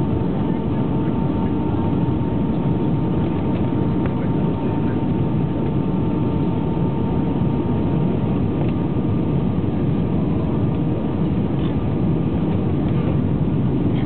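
Steady rushing cabin noise inside an airliner on final approach to land, heard at a window seat over the wing, with a faint steady whine above the rush.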